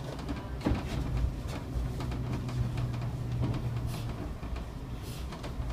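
Inside a city bus's cab: the engine running with a steady low drone while the bus moves into a stop, with scattered rattles and knocks and two short hisses near the end.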